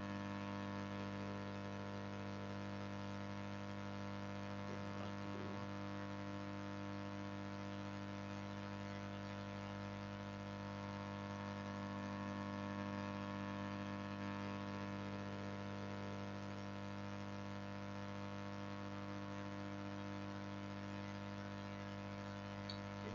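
Steady electrical hum, a mains-type drone made of several steady tones, unchanging throughout.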